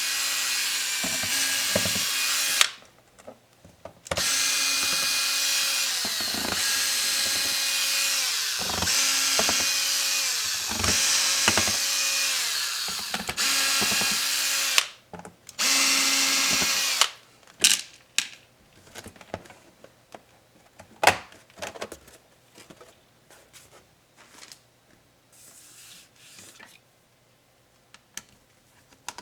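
Electric screwdriver running in long stretches, with two brief stops, as it backs out laptop case screws. About 17 seconds in it gives way to scattered small clicks and taps of screws and plastic parts being handled.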